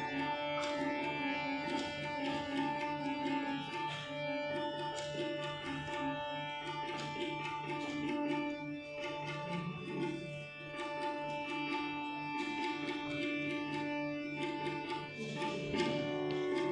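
Harmonium and tabla playing a kirtan instrumental passage: long held harmonium chords over a running pattern of tabla strokes.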